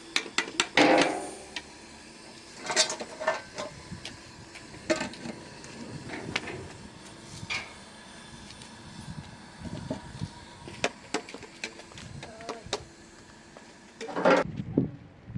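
Irregular knocks and clatter of objects being handled, louder about a second in and again near the end.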